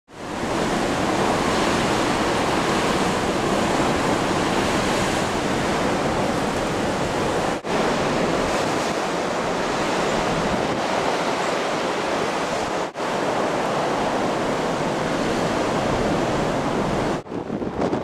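Blizzard wind in gusts of over 65 km/h, a steady rushing noise blowing on the microphone. It drops out briefly twice.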